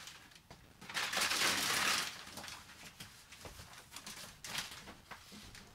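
Paper release liner being peeled off the back of a self-adhesive foil-faced insulation sheet: a loud tearing, crinkling rasp lasting about a second, starting about a second in, then softer scattered crinkles of the foil and backing paper as the sheet is pressed up onto the ceiling.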